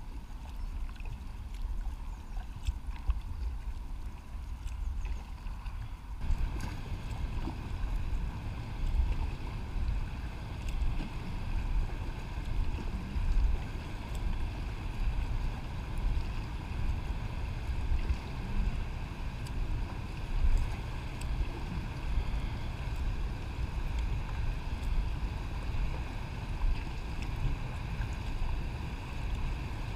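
Kayak paddling on a river: paddle strokes and water splashing around the hull, under a steady low rumble of wind on the kayak-mounted camera's microphone. The sound fills out at about six seconds in.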